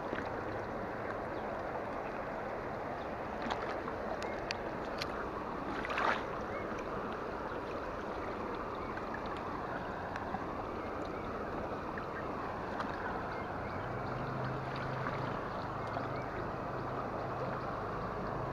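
Steady rush of flowing muddy floodwater, with a few faint knocks in the first seconds and a faint low drone joining near the end.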